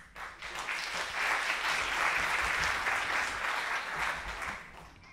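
Audience applauding, swelling within the first second, then thinning out near the end.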